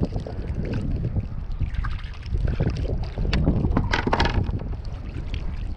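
Wind buffeting the microphone with a heavy low rumble, over short knocks and splashes from the kayak, and a louder splashing hiss about four seconds in.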